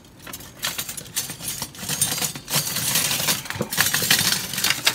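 Stainless steel kitchen utensils clattering and clinking against each other and a wire utensil caddy as a hand rummages through them for a whisk, a busy run of rapid metallic clinks.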